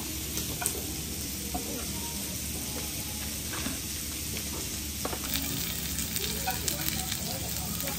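Food sizzling on a tabletop grill: a steady hiss with a few faint clicks and pops.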